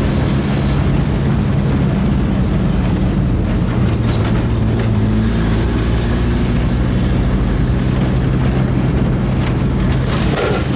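WWII military vehicle's engine running steadily as it drives along a dirt track, heard from on board. Near the end, tree branches brush against the vehicle with a short rustling scrape.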